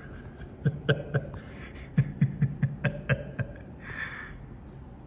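A man laughing in a run of short bursts, about four or five a second, after a few single ones near the start.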